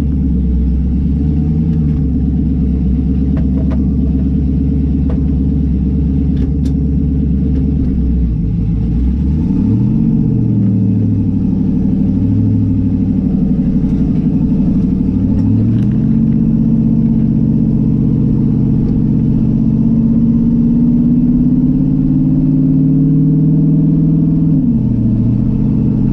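Race car engine idling evenly, then revved up and down several times from about eight seconds in, then held at a steady, slowly rising speed before dropping back near the end.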